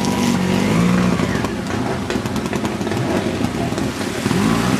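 Trials motorcycle engine revving up and down in short bursts as the bike climbs over rocks, with a rapid run of clicks about two seconds in.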